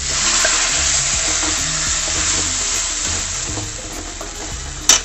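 Ground tomato paste added to hot oil with fried onions and spices, sizzling loudly in the pan. The sizzle starts suddenly and slowly eases off, and a single sharp clink comes near the end.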